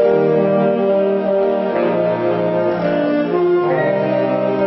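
Saxophone ensemble playing sustained chords together, the harmonies shifting every half second or so.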